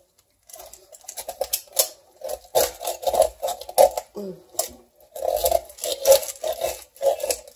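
Kitchen knife cutting and scraping inside the cavity of a raw whole turkey, working to free a small plastic device lodged there. The strokes are quick and irregular and start about half a second in.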